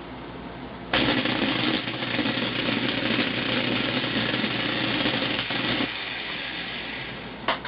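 Electric power drill switched on about a second in and running steadily for about five seconds, then dropping to a lower level as it slows, with a click near the end.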